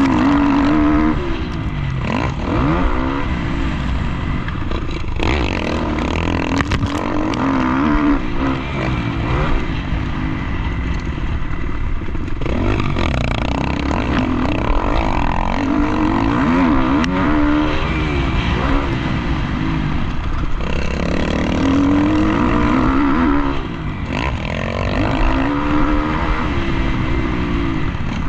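Motocross dirt bike engine heard close from a helmet-mounted camera, revving up and down over and over as the rider accelerates out of turns and backs off, the pitch rising with each pull.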